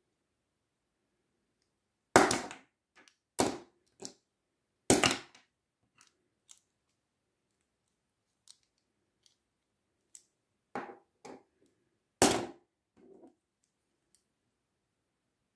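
Plastic Bakugan toy balls being snapped open and folded shut by hand: a series of sharp plastic clicks and snaps. Four are loud and spread over several seconds, with fainter clicks in between.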